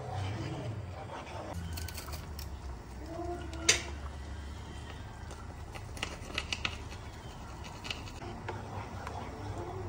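Metal garlic press clicking as garlic is pressed into a pan of tomato sauce: one sharp click a few seconds in, then a cluster of lighter clicks, over a low steady hum.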